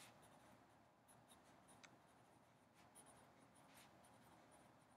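Faint scratching of a pen writing on paper, in short scattered strokes.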